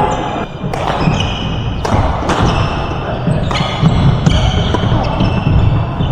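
Badminton doubles rally: several sharp racket hits on the shuttlecock, spaced about half a second to a second apart, with high short squeaks of court shoes, over background chatter.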